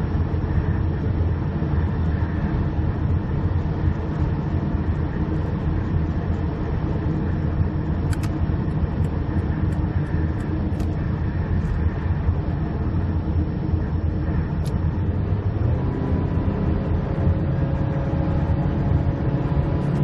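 Steady engine and road rumble heard from inside a car cruising at motorway speed on a wet road, with tyre hiss. A few steady tones join in near the end.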